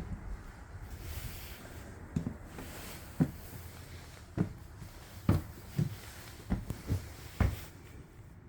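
Footsteps on the floor of a fifth-wheel trailer: a string of low, uneven thumps that starts about two seconds in and stops shortly before the end.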